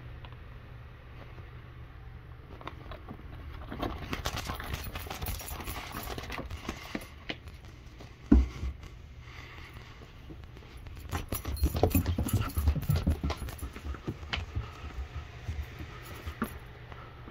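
A cat moving about and pawing at things close to the microphone: scattered scuffles and taps, with a sharp knock about eight seconds in and a busier spell of scuffling around twelve seconds.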